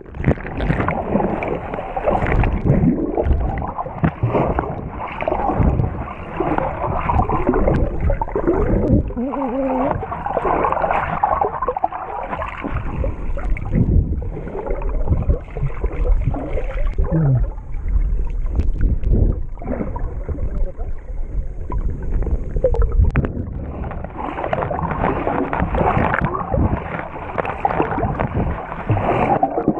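Muffled, continuous rumbling and sloshing of seawater picked up by a camera held underwater, with the high end cut off.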